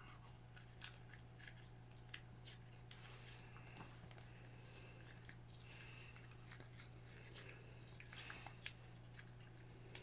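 Faint, irregular scratchy strokes and small clicks of a toothbrush scrubbing a dog's teeth, over a steady low hum.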